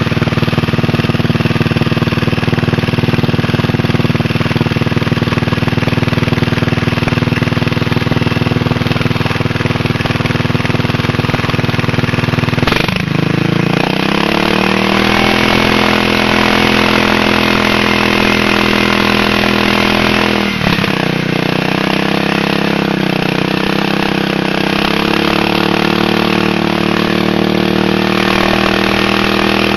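Small riding garden tractor engine running fast and steady. About 13 seconds in its pitch drops sharply and climbs back, and near 21 seconds it dips briefly and recovers again, as load comes on the engine.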